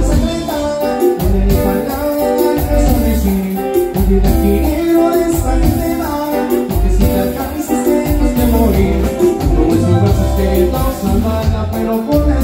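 Live Latin band music with a steady beat: electric guitar, electric bass, drums and keyboard.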